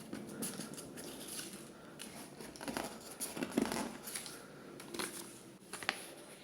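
Packaging crinkling and rustling, with scattered light clicks and taps, as the contents of a keyboard box are handled.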